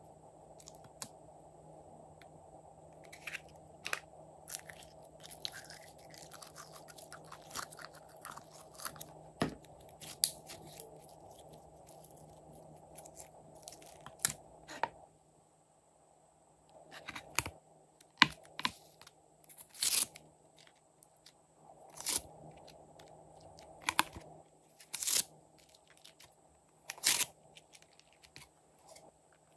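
Slime being stretched, pressed and squished by hand in a plastic tray, giving a dense run of small sticky crackles and clicks. About halfway through, the crackling stops and is followed by separate louder pops and clicks every second or two.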